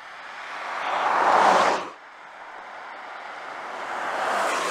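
Porsche Taycan electric car driving past on a wet, slushy road: mostly tyre hiss and spray, rising to a loud peak and cut off sharply about two seconds in, then a second pass building up near the end.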